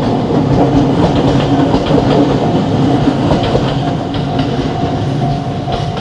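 A train passing close by over a level crossing, its wheels clattering over the rail joints with a steady rumble. A steady higher tone comes in near the end.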